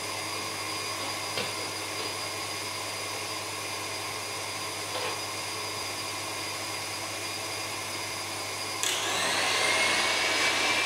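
Electric stand mixer whipping cream, its motor running with a steady whine; about nine seconds in it is switched to a higher speed, and the whine gets louder and rises in pitch.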